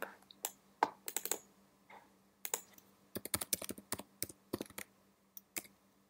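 Computer keyboard typing in short runs of quick keystrokes, with a few separate clicks between them.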